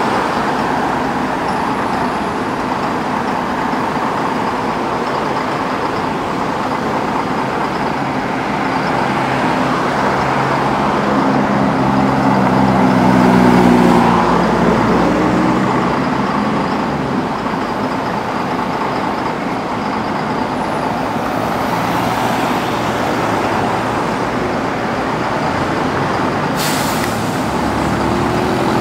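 Steady road traffic with buses running. About halfway through, a vehicle engine grows louder and rises then falls in pitch as it passes. A short, sharp hiss comes near the end.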